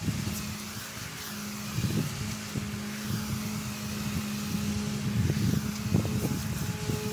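Pressure washer running: a steady motor hum under the hiss of the water jet as the lance sprays an aluminium wheel and tire.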